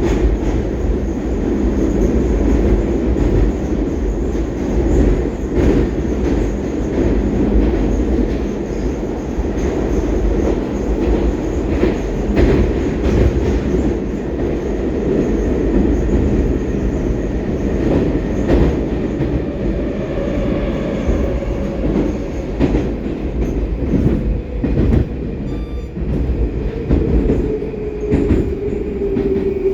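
Inside a Baltiets metro car running through the tunnel: a loud, steady rumble of wheels on rails with occasional knocks. About two-thirds of the way through, a motor whine slides slowly down in pitch as the train begins to slow.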